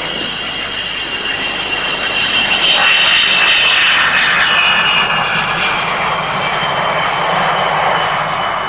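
The twin Rolls-Royce Avon turbojets of a de Havilland Sea Vixen running as the jet rolls past on the runway. A high whine sits over a rushing roar; the sound swells to its loudest about three to five seconds in, then the whine drops slightly in pitch as the aircraft passes and fades off.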